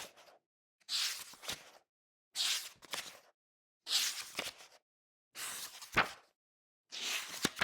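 Pages of a book being turned one at a time, about five turns, each a papery swish ending in a soft snap as the page lands, roughly one every one and a half seconds.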